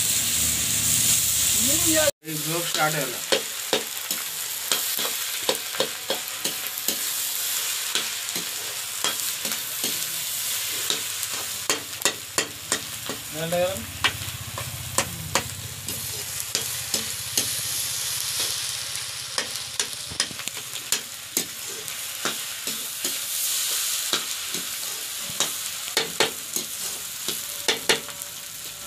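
Egg bhurji frying in a wok with a steady sizzle, while a spatula stirs it and scrapes and clicks against the pan many times. The sound cuts out for an instant about two seconds in.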